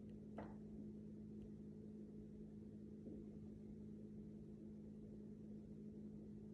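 Near silence: faint room tone with a steady low hum and a single faint click about half a second in.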